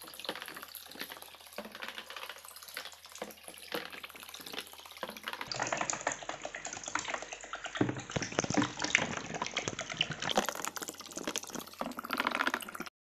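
Water splashing and churning as a homemade battery-powered DC-motor toy boat drives its propeller around a tub. The sound changes abruptly twice, about five and ten seconds in, and cuts off just before the end.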